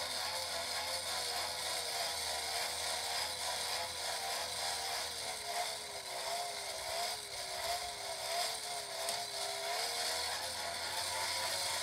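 Hand-crank forge blower whirring, its gears and fan giving a wavering whine over a rushing hiss of air. The pitch sags a little in the middle as the cranking slows, then comes back up near the end.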